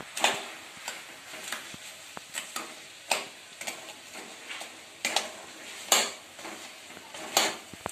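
Metal spatula scraping and clinking against a metal kadhai as a fish-head and cabbage curry is stirred and the fish heads broken up, in irregular strokes about once a second.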